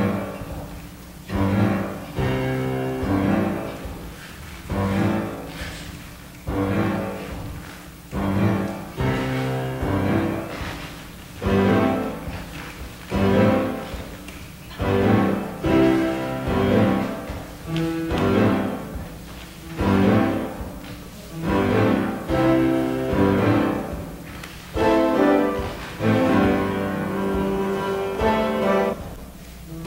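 Instrumental accompaniment music for dance class, with a strongly accented pulse: a swelling stroke comes about every one and a half to two seconds.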